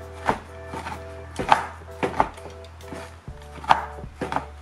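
Kitchen knife chopping a bar of dark chocolate on a wooden cutting board: several sharp knocks of the blade hitting the board, in an irregular rhythm.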